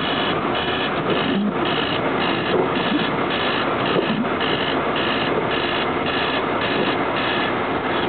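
An electronic alarm beeping in a fast repeating pattern, about two beeps a second, over the steady noise of a car driving on a snow-covered road.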